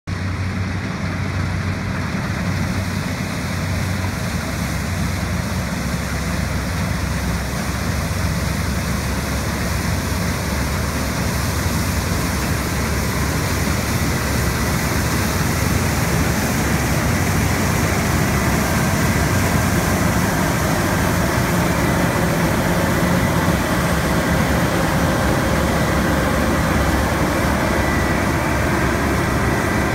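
Massey Ferguson 9380 Delta combine harvester working, its engine droning steadily under the rushing of the threshing and straw-chopping machinery. It grows gradually louder as it draws close, with a thin whine joining in about halfway through.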